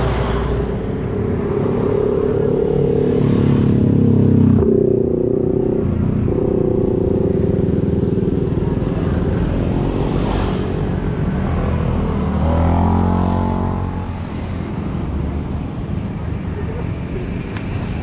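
Road traffic passing close by: cars and motorcycles go by one after another, their engine sound swelling and fading. A louder pass comes about four seconds in. Another vehicle goes by about two-thirds of the way through, its engine pitch falling as it passes, and after that things quieten.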